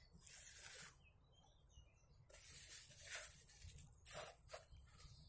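Faint rustling and a few soft crackles of fried belyashi pastries being handled and lifted off a plastic sheet, with a near-silent pause about a second in.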